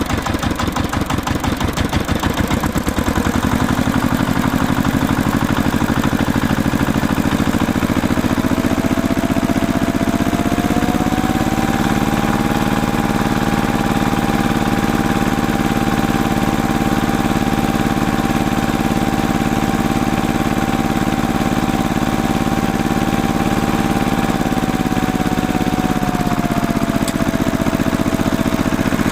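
Tractor engine running at a slow chugging idle, then speeding up in two steps over the first third. It holds a steady higher speed with a faint whine over the engine, then eases back down near the end.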